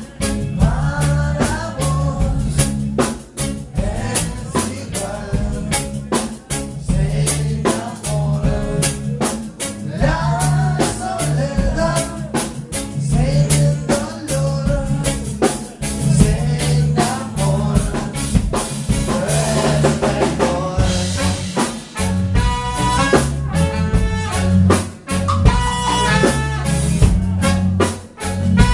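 A live band playing, with a drum kit and a male lead singer. Near the end a trumpet and a saxophone take up the tune.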